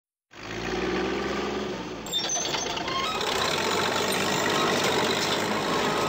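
Heavy construction machinery engine running steadily, with clanks and rattles joining in about two seconds in.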